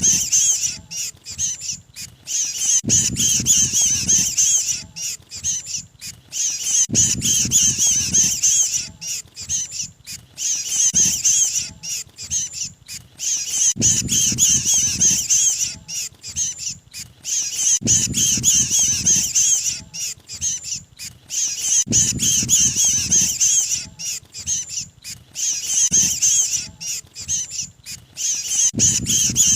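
Bird-trapping lure recording of a small bird's rapid, high-pitched scolding distress calls, the 'kejepit' (trapped bird) call of the mantenan, repeating in bursts about every four seconds, each burst opening with a low rumble.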